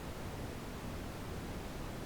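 Brown noise: a steady, even rumbling hiss, deepest at the low end, with no changes or events.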